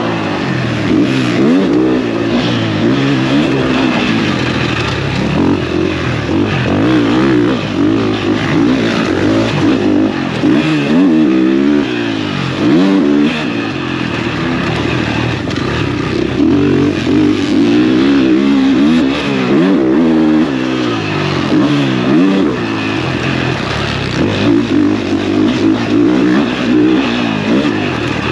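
Motocross bike engine revving hard as it is ridden around a track. The pitch climbs and drops again and again with throttle and gear changes.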